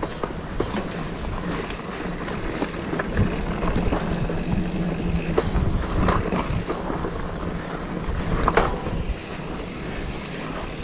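Mountain bike ridden down a dirt trail: tyres rolling over dirt and loose debris, with scattered clicks and rattles from the bike over bumps and a steady rumble of wind on the microphone.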